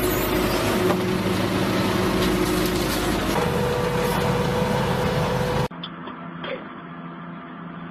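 Heavy machinery running loudly, a dense noise with steady engine tones. About six seconds in it cuts off abruptly to a quieter, steady engine hum with a few knocks.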